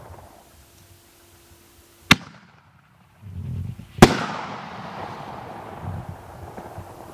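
Excalibur consumer artillery shell fired from its mortar tube: a sharp launch report about two seconds in, then about two seconds later the loudest bang as the shell breaks in the air, followed by a slowly fading tail of sound.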